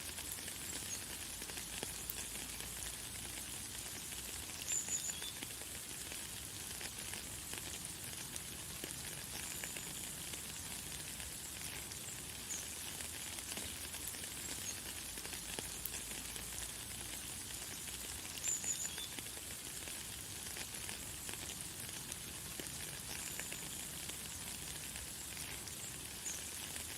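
Light, fine rain falling in a steady hiss, with short high bird chirps every few seconds; the loudest chirps come about five seconds in and again about eighteen seconds in.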